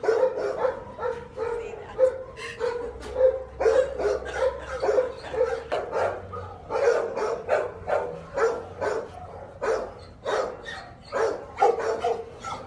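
Dog barking repeatedly in a steady run of short barks, two or three a second.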